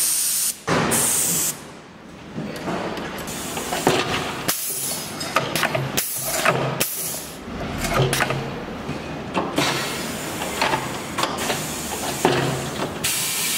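Giuliano SL22 automatic tilt-back tyre changer being worked: a burst of compressed-air hiss from its pneumatics about a second in, then a run of knocks and clunks as the tower tilts and the operating arm moves.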